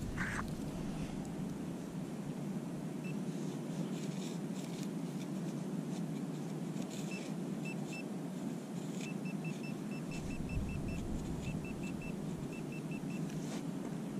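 Handheld Garrett Pro-Pointer pinpointer probing a dug hole, giving short high beeps: single beeps at first, then quick runs of about four to five a second. The beeps signal buried metal close to the probe tip.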